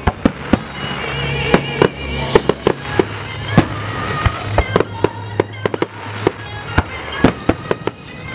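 Fireworks display: many sharp bangs and crackling bursts in quick succession, some louder booms among them, with music playing underneath.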